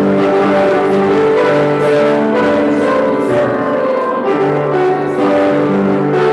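A hymn played on piano, in slow held chords.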